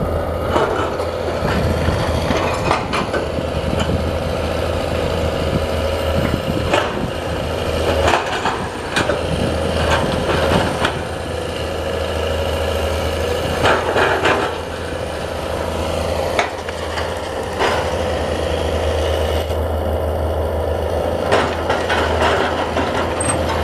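Hyundai hydraulic excavator's diesel engine running steadily as it loads soil into a steel-bodied dump truck, with thuds and rattles every few seconds as earth and the bucket strike the truck bed.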